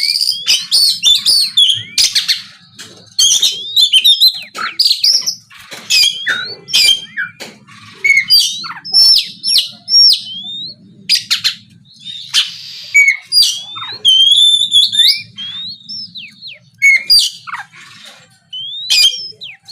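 Oriental magpie-robin (kacer) singing loudly in a rapid run of varied whistled notes, rising and falling, mixed with a few harsh rasping notes. The song comes in bursts with short pauses between phrases.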